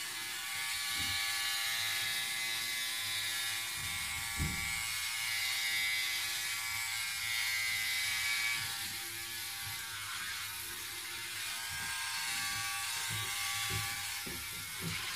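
Philips OneBlade electric shaver running with a steady buzzing whine as it is drawn over shaving gel on the neck, with a few faint knocks of the shaver against the skin.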